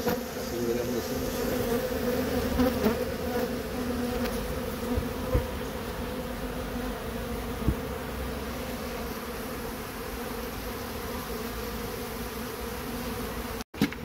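Steady buzzing hum of a large honeybee colony swarming over its exposed, smoked comb, with a brief break in the sound just before the end.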